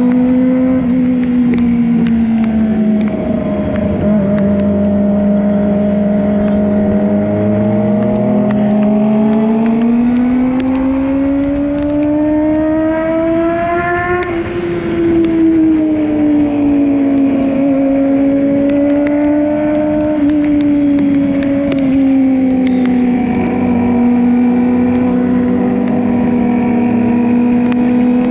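Motorcycle engine running under way, its pitch climbing slowly to a peak about halfway through and then easing back down and levelling off, over a steady rush of noise.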